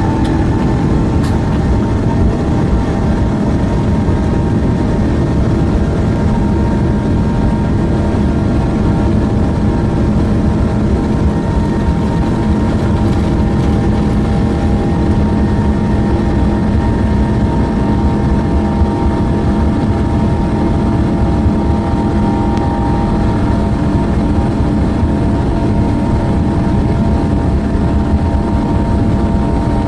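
Airbus A350-XWB's Rolls-Royce Trent XWB turbofan engines running at takeoff thrust: a loud steady rumble under a held, even engine whine.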